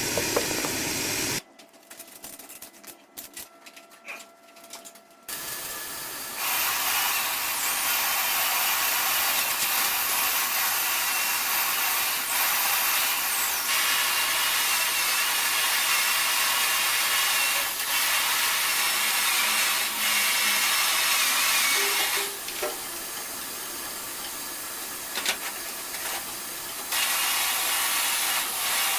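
A power tool running steadily, drops in level for a few seconds near the end, then picks up again. The first few seconds are quieter, with scattered clicks.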